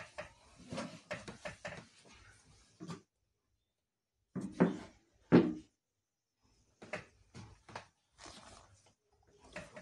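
Handling noise: a series of irregular knocks and rustles, with the two loudest thumps about halfway through.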